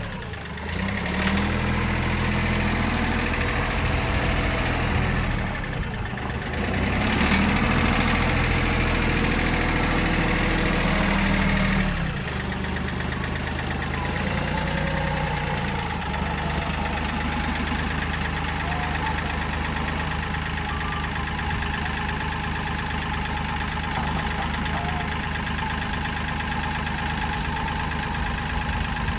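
An engine running, its pitch shifting up and down several times over the first twelve seconds, then steadier and a little quieter.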